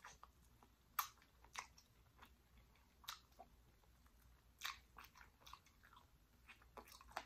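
Close-up eating sounds of a person biting and chewing meat off a jerk pig tail: faint, with about a dozen irregular sharp mouth clicks and smacks.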